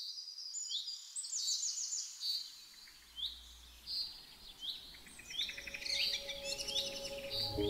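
Small birds chirping and calling, a series of short, high notes that sweep up and down, with some rapid trills among them. Faint background music comes in near the end.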